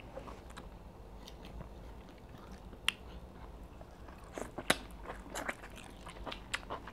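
People chewing mouthfuls of pounded yam and meat: wet mouth clicks and lip smacks, one sharp click about three seconds in and a quicker run of them in the second half.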